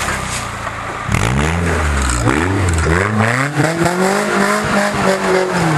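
Suzuki Samurai 4x4's engine revving hard under load as it climbs a steep dirt bank, with spinning tyres throwing up dirt and leaves. The revs climb about a second in, hold high, and start to drop near the end.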